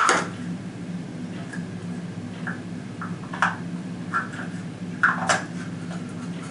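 Scattered light clicks and taps from handling a rifle scope and its packaging, the loudest pair about five seconds in, over a steady low hum.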